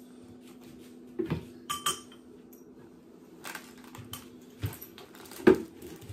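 Plastic parts of a toy basketball hoop set clicking and knocking together as they are lifted out of the box and handled, with one louder knock near the end.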